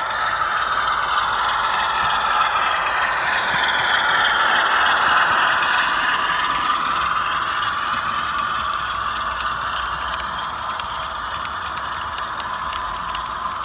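A model train, a diesel locomotive hauling coaches, running past on the track. Its sound builds as it draws near, is loudest about five seconds in, then eases a little as the coaches roll by.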